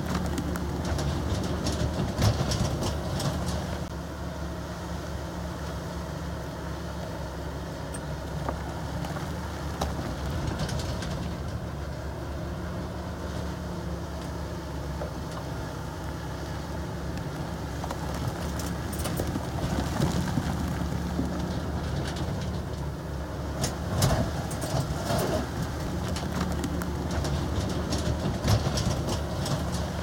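Heavy diesel engine of a crawler bulldozer running steadily, with metallic clanks and rattles several times.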